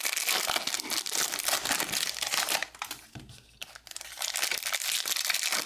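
Crinkling and rustling of baseball card packs and cards being handled, with a quieter pause for about a second a little past halfway.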